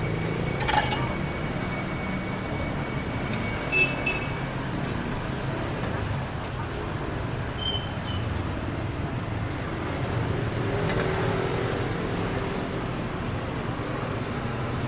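Steady street traffic noise, mostly motorbikes, with a few brief clicks.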